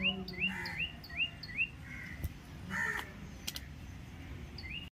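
Birds chirping outdoors: a quick run of short, repeated chirps, about two a second, over the first second and a half, then scattered calls and a few faint clicks.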